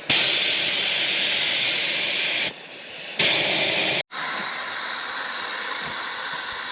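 Air hissing out of a Jeep tire through a tire deflator as it is aired down for deep snow. A loud, steady hiss that dips for about half a second, comes back, then breaks off abruptly about four seconds in and resumes a little quieter.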